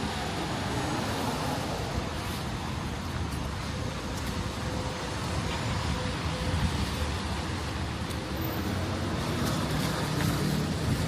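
Motor traffic passing on a rain-wet city street: a steady hiss of tyres over a low engine rumble.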